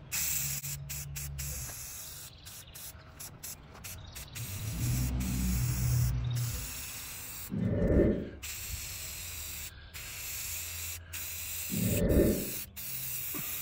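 Aerosol spray-paint can hissing as red paint goes onto a trike frame in repeated passes, the hiss cutting off and restarting many times. Twice, about halfway and near the end, a short dull low bump stands out.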